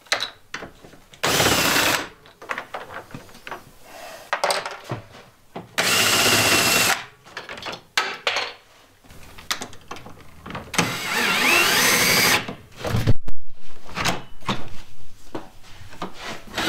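Cordless drill driving screws into a refrigerator door's latch and hinge hardware in three short runs, each pitch rising as the motor spins up. Clicks and knocks from handling the door and screws come in between, with a loud clatter of knocks just after the third run.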